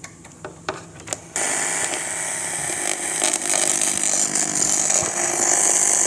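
A few clicks as a 3.5 mm aux jack is pushed into a monitor's audio input. About a second in, a loud, harsh buzzing noise starts from the monitor's built-in speaker and keeps on, a little louder in the second half. It is interference noise picked up through the aux cable while its other end is left unconnected, with the monitor volume at full.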